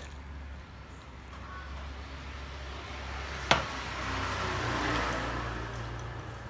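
A road vehicle passing, its noise growing louder to a peak then fading, over a steady low hum. About halfway through comes one sharp clink of tableware.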